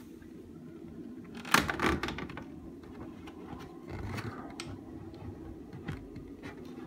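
Plastic ceiling exhaust-fan grille being handled. There is a quick cluster of clicks and knocks about a second and a half in, then a few lighter single ticks, over a steady low hum.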